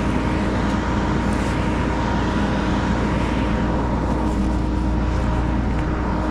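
An engine running steadily at a constant speed, with a steady low hum.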